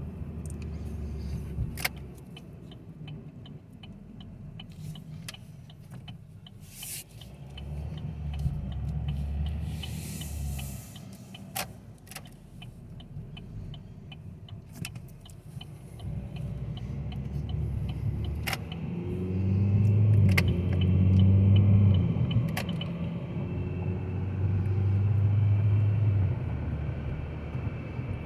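2017 Chevy Cruze's turbodiesel four-cylinder and road rumble heard from inside the cabin while driving, swelling louder about two-thirds of the way through. A light, even ticking and a few sharp clicks sound over it.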